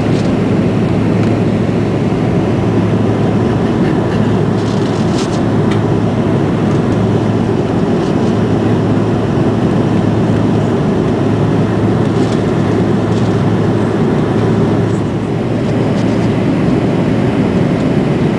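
Cabin noise inside an Airbus A330-223 on approach: the steady roar of its Pratt & Whitney PW4000 turbofans and the airflow past the fuselage, with a steady low hum beneath it and a few faint clicks.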